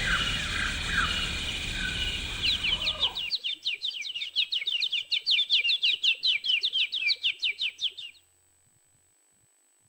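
A bird's rapid trill of short, sharp chirps, about seven a second, that stops abruptly about eight seconds in. For the first three seconds a noisy background with croaking calls lies under it, then cuts off suddenly.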